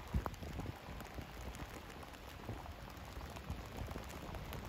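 Steady rain falling, with many separate raindrops ticking close by.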